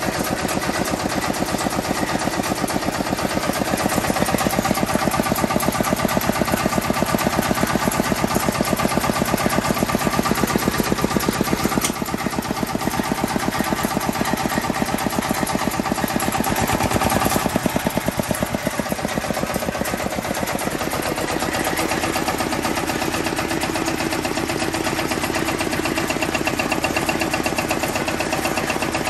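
Kubota KNDR90 diesel engine of a riding tiller running with a rapid, even knock. About 18 seconds in the sound changes and the deep part of the engine note drops away.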